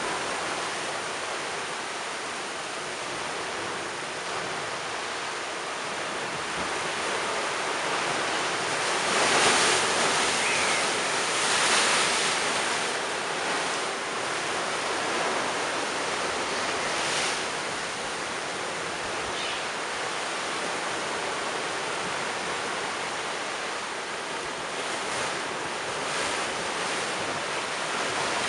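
Storm-surge sea waves crashing against a stone seawall and sluicing up and over concrete steps, a continuous rush of surf with louder breaking surges about nine, twelve and seventeen seconds in.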